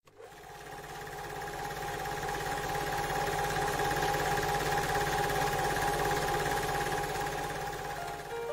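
Film projector running: a steady mechanical clatter of rapid clicks over a hum, fading in over the first few seconds.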